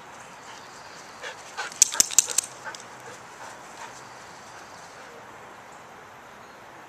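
Siberian huskies at play, with a quick burst of sharp yips about two seconds in.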